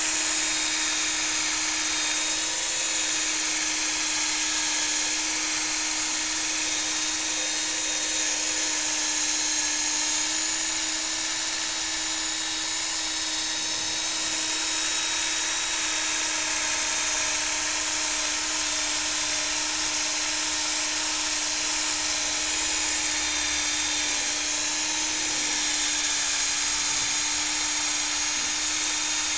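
Cordless drill running steadily at high speed, spinning a Mothers PowerBall foam polishing ball against a plastic headlight lens to polish it: an even, unbroken whine with a constant pitch.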